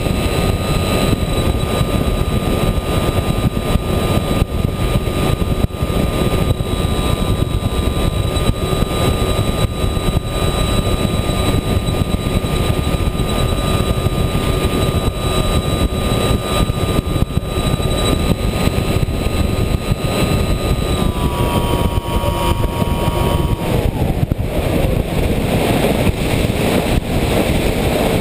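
RC plane's motor and propeller whining at steady throttle, heard from the onboard camera over a constant rush of wind. About three-quarters of the way through, the whine drops in pitch and fades as the throttle is cut, leaving mostly wind noise as the plane descends.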